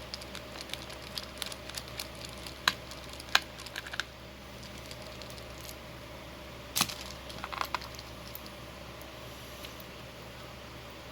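Small scattered metal clicks and scrapes of a screwdriver being worked into a padlock being taken apart. A few sharper clicks stand out, twice in the first half and a couple more past the middle.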